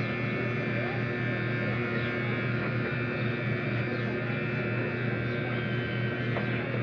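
Electric hair clippers buzzing steadily while trimming close to the ear.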